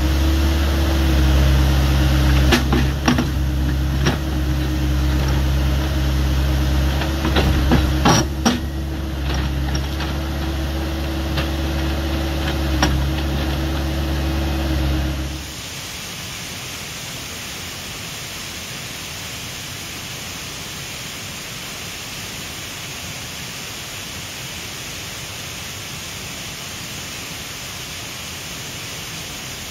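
Excavator's diesel engine running steadily, with scattered metallic knocks and clanks from the machine working. About halfway through it cuts off suddenly, leaving a steady, even rushing noise.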